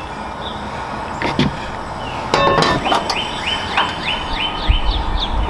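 Outdoor propane wok burner running with a steady hiss, with a few sharp knocks, and a bird calling a quick series of about eight high chirps from about three seconds in.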